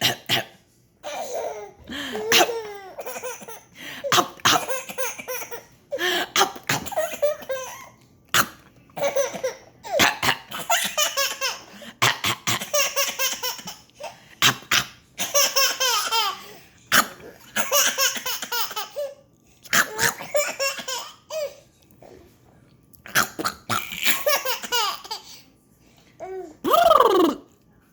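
A baby's belly laughs in repeated bursts, set off by a person's coughing sounds.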